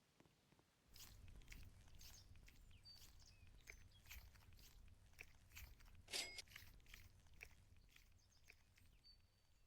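Faint crackly squishing and small clicks of a squishy foam toy being squeezed and handled, starting about a second in.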